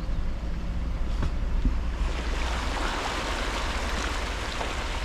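A vehicle driving through floodwater on a flooded road: a low engine rumble, then a steady rush of water splashing and spraying from about two seconds in.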